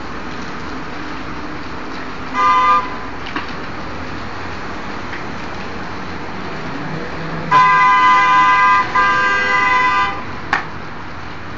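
Vehicle horn sounding: a short blast, then a long blast with a brief break in it, over a steady background noise.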